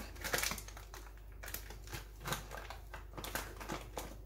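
Paper flour bag rustling as flour is scooped out of it by hand, heard as a series of short, irregular scuffs and light taps.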